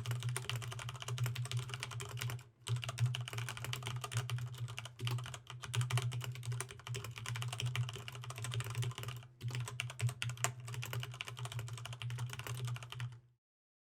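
Fast, continuous typing on a Corsair STRAFE RGB MK.2 mechanical keyboard with linear Cherry MX Red switches (the non-silent version): a rapid stream of keystrokes with two brief pauses, stopping abruptly just before the end.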